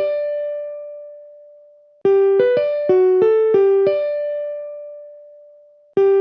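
A short electronic keyboard-like melody: a run of quick notes ending on one long held note that fades away, repeating about every four seconds.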